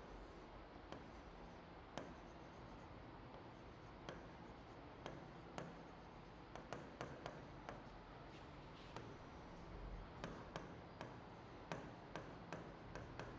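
Writing on a board: faint, irregular taps and short scratching strokes of the pen as words are written.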